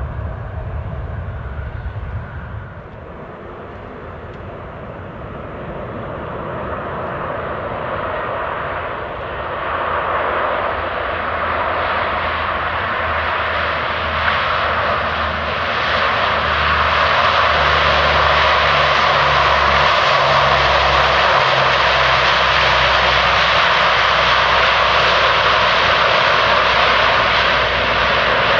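Four Allison T56 turboprop engines and propellers of a Lockheed C-130H-30 Hercules running during its landing. The sound grows steadily louder from about a third of the way in and stays at its loudest through the second half, as the aircraft rolls out on the runway.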